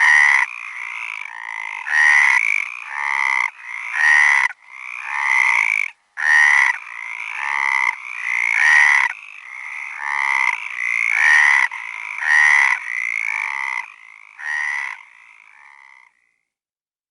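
Frogs croaking, a steady run of repeated, overlapping calls about one a second, which cut off about sixteen seconds in.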